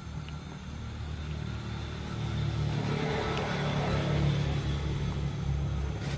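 Low engine rumble of a motor vehicle running nearby, getting louder about two and a half seconds in and then holding steady.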